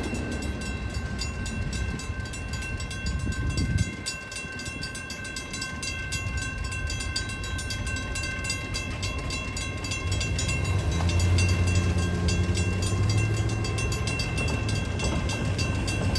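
Union Pacific intermodal freight train rolling over a grade crossing, its rumble dropping away about four seconds in as the last cars clear. The crossing's warning bell keeps ringing in a fast, even rhythm.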